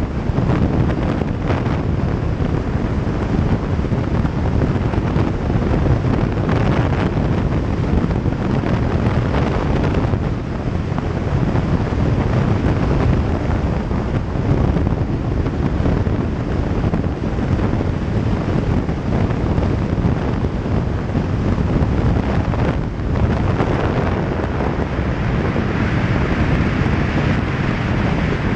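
Wind buffeting the microphone of a camera on a moving motorcycle: a steady rushing noise at road speed. A brighter hiss comes in near the end.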